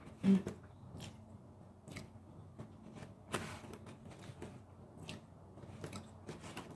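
Fingers picking through saucy beef steak in a styrofoam takeout container: irregular small clicks, squeaks and wet squishes. The loudest is a short low thump about a third of a second in.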